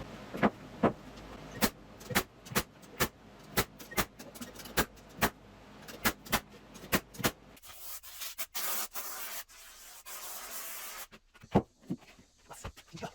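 Woodworking knocks and taps in an irregular series, roughly two a second, with a stretch of hissing, rubbing noise a little past the middle.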